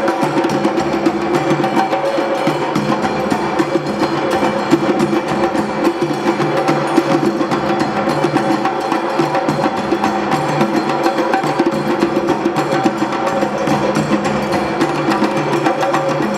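Drum ensemble playing a fast, continuous percussion rhythm, dense and steady throughout.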